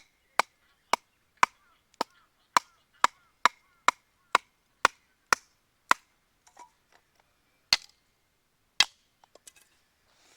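Firewood being split with a nata (Japanese hatchet): a run of sharp wooden knocks, about two a second for some six seconds, then two more spaced-out knocks.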